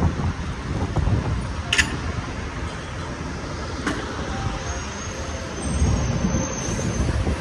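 Low, uneven rumble of road traffic, with two sharp clicks about two and four seconds in.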